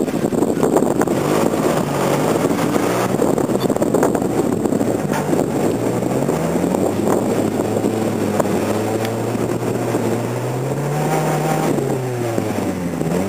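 Engine of a lifted Suzuki 4x4 on oversized tyres working under load as it climbs a steep loose-gravel slope. Its pitch wavers, rises to a peak about ten seconds in, then falls away near the end.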